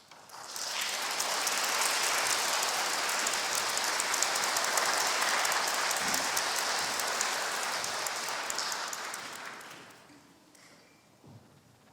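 Audience applauding: it swells up quickly, holds steady for several seconds, then dies away near the end.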